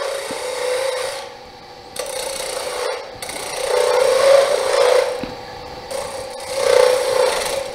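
Wood lathe spinning a wooden duck-call blank while a hand-held turning tool cuts it on the tool rest, a hissing scrape over the steady hum of the lathe. The cuts come in four passes of a second or so, with short pauses between.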